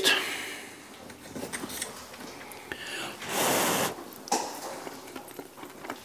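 A man tasting a forkful of baked sweet potato: a few faint clicks, then a loud breath through the nose as he chews, about three and a half seconds in.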